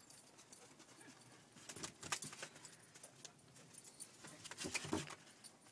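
A Leonberger's paws crunching and scuffing in snow close by as it climbs up onto snowy steps, in two louder flurries, about two seconds in and near the end.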